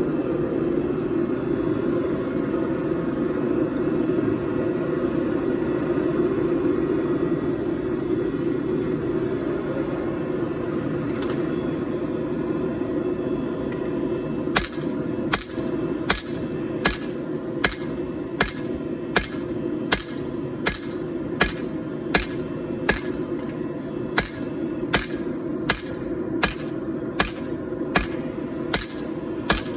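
Hand hammer striking hot 4140 steel on a 130-year-old anvil: from about halfway in, steady blows come about three every two seconds, each with a short bright ring. For the first half only a steady low roar is heard, and it carries on under the blows.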